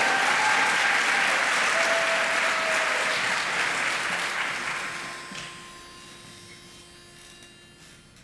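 Audience applauding, dying away about five seconds in and leaving a faint steady hum.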